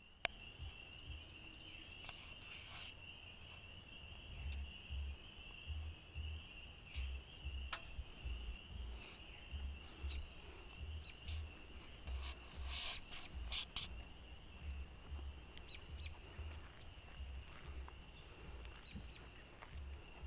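A steady high-pitched chorus of calling insects, under uneven low rumbling from wind buffeting the camera microphone, with a few sharp clicks around the middle.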